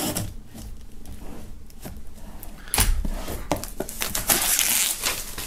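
Knife slitting the plastic shrink wrap on a cardboard box, then the film rustling and crinkling as it is peeled off, with a few sharp clicks and scrapes about three seconds in.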